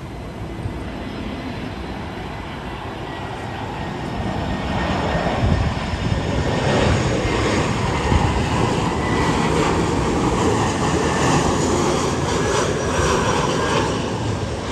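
Eva Air Airbus A321 jet airliner on landing, its engine noise swelling as it comes close and holding loud, with a faint high whine over the noise.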